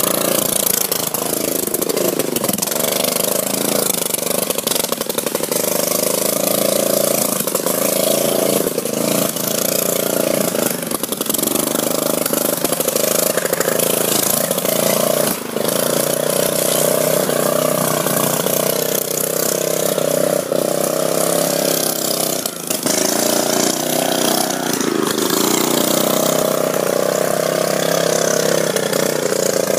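Riding lawn mower's small engine running steadily at speed as it is driven around, its pitch rising and falling slightly.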